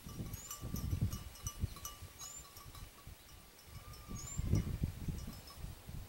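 Wild birds calling: a short, high rising whistle repeated about every two seconds over other faint, thin bird notes, with irregular low rumbling noise on the microphone.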